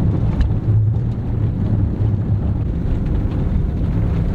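A vehicle driving slowly over a rough, unpaved road: a steady, heavy, low rumble of engine and tyres on the uneven surface, with wind noise on the microphone.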